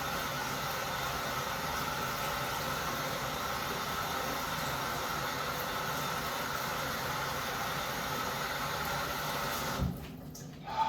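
Tap water running steadily into a sink, shut off abruptly with a short knock near the end.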